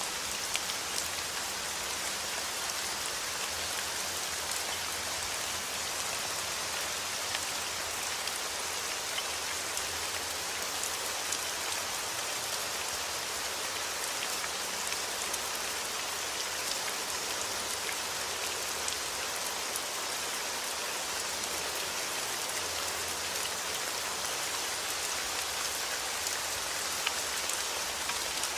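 Steady rain falling, an even hiss with many small scattered drop ticks on a surface.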